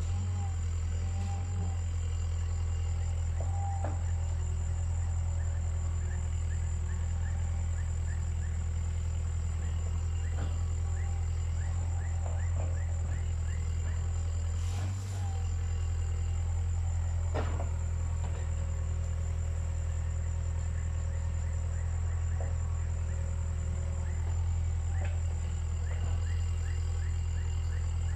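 Caterpillar 305.5E2 mini excavator's diesel engine running steadily while the machine works, with a couple of sharp knocks about halfway through.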